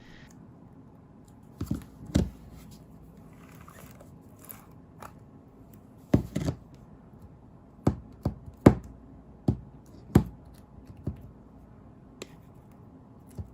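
Sequin crunch-bomb slime being handled and pressed, giving about a dozen separate sharp clicks and crunches scattered irregularly, with short quiet gaps between them.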